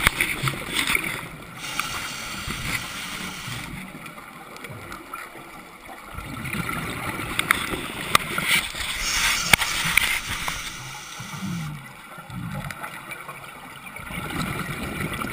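Scuba regulator breathing underwater: slow cycles of hissing inhalation and gurgling bubbles of exhaust, a few seconds each. A few sharp clicks come around the middle.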